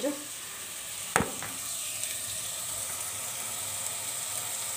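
Minced meat and chopped vegetables sizzling steadily as they fry in a steel pot on the hob. A single sharp knock comes about a second in.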